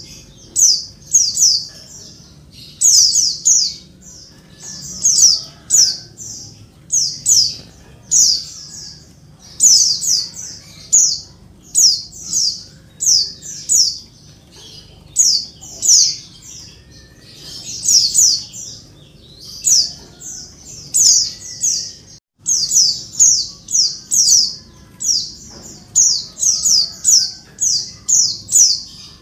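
Female pleci (white-eye) calling busily: short, sharp, high-pitched notes in quick clusters of two to four, about a cluster a second. This is the noisy calling of a female to a male. The sound cuts out for a moment about 22 seconds in.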